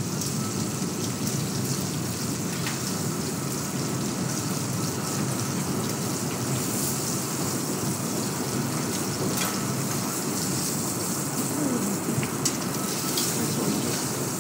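Chicken pieces sizzling steadily in hot oil in a sauté pan as they brown skin side down, with a few light clicks of metal tongs against the pan.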